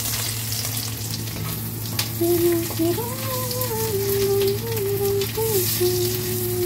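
Small dried anchovies and ginger sizzling steadily as they fry in hot oil in a wok, being crisped until crunchy. From about two seconds in, a voice hums a few held notes over the sizzle.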